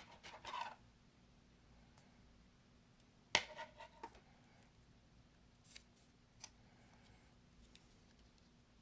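Small hand-handling sounds of phone repair parts and tools: a short rustle, then a sharp click with a brief rattle about three seconds in, then a few faint ticks.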